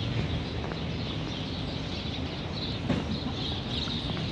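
Steady city-street background noise heard while walking, with a low rumble and a single sharp click about three seconds in.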